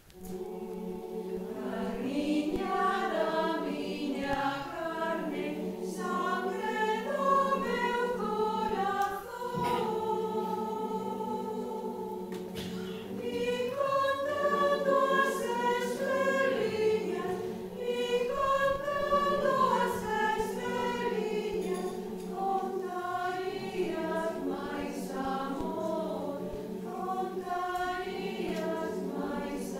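Mixed choir singing a Galician lullaby (canto de berce), several voice parts moving over a held low note, after a brief break at the very start.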